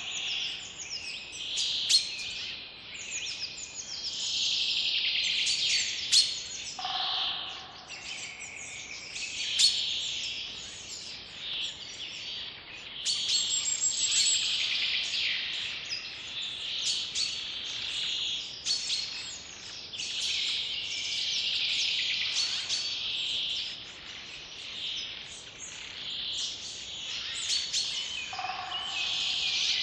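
Many birds singing and chirping at once, a dense run of overlapping high calls, with a lower call twice.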